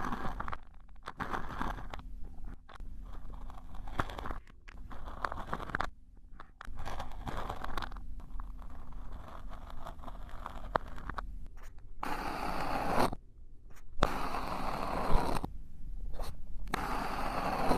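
Repeated scraping and crunching strokes, in stretches of several seconds broken by brief pauses.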